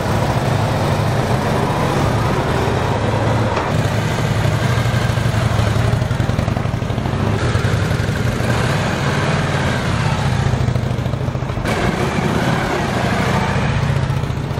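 Indian motorcycle's V-twin engine running steadily up close, its low, pulsing exhaust note changing abruptly a few times.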